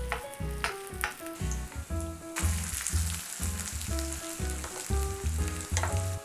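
Shredded potato frying in plenty of hot oil in a pan, sizzling. The sizzle swells suddenly a little over two seconds in, with background music underneath.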